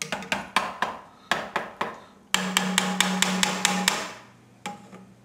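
Sharp knocks and taps from kitchen work, a few a second, then a quicker run of clicks over a steady hum lasting about a second and a half, then fading to a couple of faint ticks.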